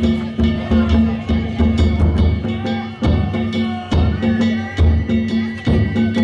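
Danjiri festival music: a taiko drum and small hand gongs (kane) beating a steady, even rhythm, with a held high tone over it.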